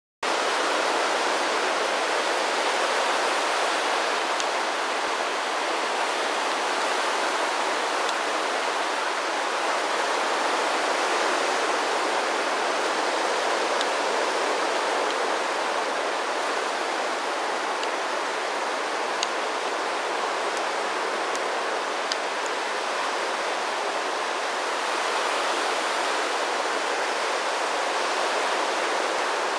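Ocean surf breaking on a beach: a steady rushing wash with no single wave standing out.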